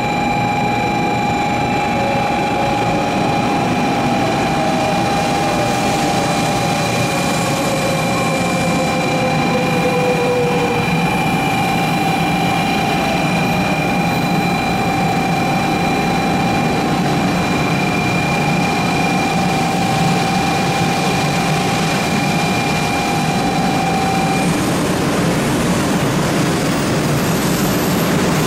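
Electric train running, a steady rumble with a high whine of several held tones that cuts off about 24 seconds in. A lower tone slides down in pitch early in the stretch.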